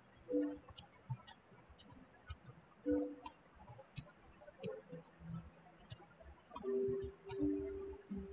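Computer keyboard typing: rapid light key clicks throughout. A few short steady low tones stand out, louder than the clicks, about half a second in, near three seconds, and for over a second near the end.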